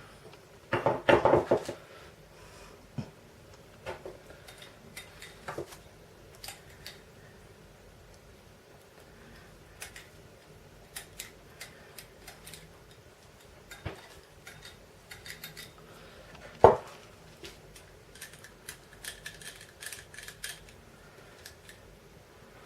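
Small metal parts and tools clinking and tapping while a VAZ classic's mechanical fuel pump is worked on: scattered light clicks, a rattling clatter about a second in, and one sharp knock, the loudest, about three-quarters of the way through.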